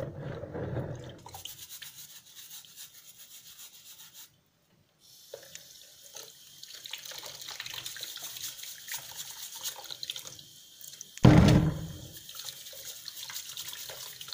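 Stiff brush scrubbing black summer truffles in a bowl of water, a fast scratchy rasp with water splashing. After a brief silence a tap runs onto the brush and truffles while the scrubbing goes on, and there is a loud thump about eleven seconds in.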